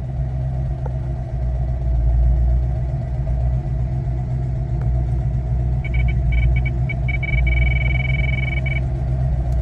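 Steady rumble of a CHP Ford Mustang, with a high electronic beep from inside the car about six seconds in: a few short broken beeps, then one steady beep for about a second and a half that cuts off. The cause of the beep is unknown; the owner wonders if something behind the dashboard makes it.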